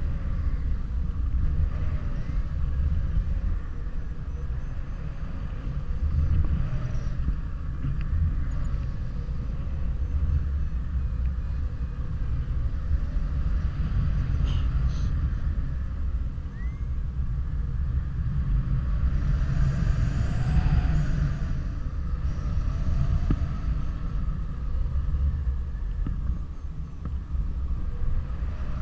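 Wind buffeting the microphone of a camera on a paraglider in flight: a continuous low rushing rumble that swells and eases unevenly.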